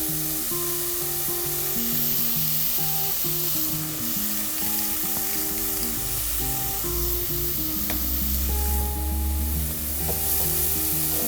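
Chopped spring onion, garlic and onion sizzling steadily in oil in a pot as they sweat, with a soft background melody and a single click about eight seconds in.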